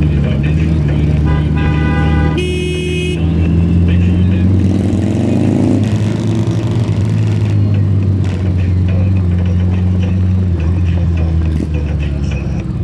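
Motorcycle engines running at low speed in a group ride, with two horn honks back to back about a second and a half in, the second lower and louder. Around five seconds in, an engine revs up briefly.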